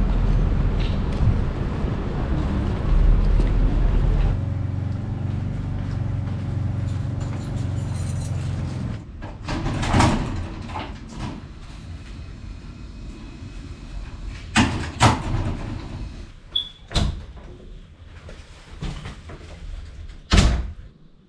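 Road and wind noise from travelling along a city street, giving way after about four seconds to a steady low hum. From about nine seconds in come sharp knocks and door sounds as a door is opened and shut, the loudest near the end.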